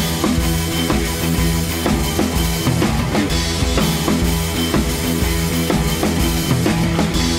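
Rock music with a drum kit keeping a steady beat.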